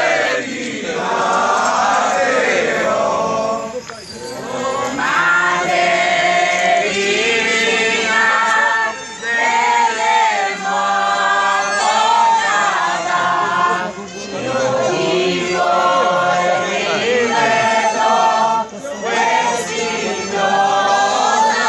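Crowd of procession voices singing a devotional chant together, in held phrases a few seconds long with short breaks about every five seconds.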